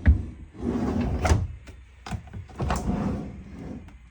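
Refrigerator door being opened and handled: a few sharp clicks among swishing, rubbing noise.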